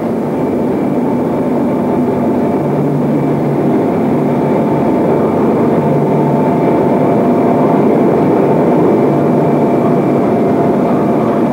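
Steady machinery roar of an industrial heat-treatment hall running gas-carburizing bell furnaces: a dense, even rumble with a few steady humming tones over it.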